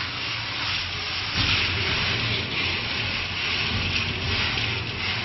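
Rotating drum nut roaster running while roasted peanuts pour out of its discharge chute into a metal basin: a steady rushing, rattling noise over a low machine hum, growing louder about a second and a half in.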